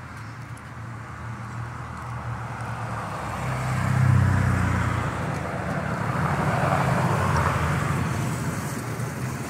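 A motor vehicle's engine running close by with road noise, growing louder over the first four seconds and then holding steady.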